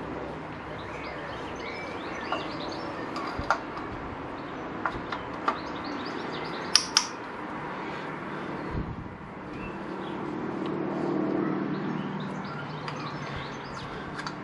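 Scattered sharp metallic clicks and clinks of a socket wrench on the 8 mm sprocket-cover bolts of a motorcycle engine, over a steady low hum, with birds chirping faintly in the background.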